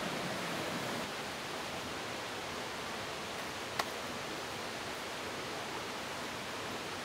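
Steady, even rushing background noise of an outdoor forest camp, with one sharp click about four seconds in.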